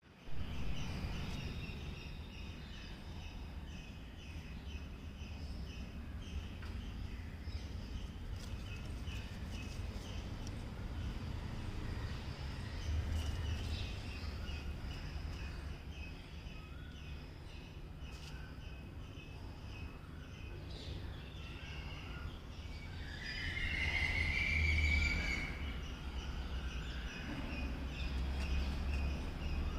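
Birds chirping in fast, evenly repeated series of short high notes, with a louder drawn-out call about three-quarters of the way through, over a steady low outdoor rumble.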